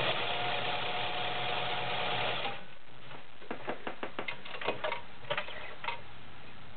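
White model 1510 sewing machine running steadily as it sews a zigzag stitch, stopping abruptly about two and a half seconds in. It is followed by a scatter of short, light clicks as the stitch selector dial is turned and the work is handled.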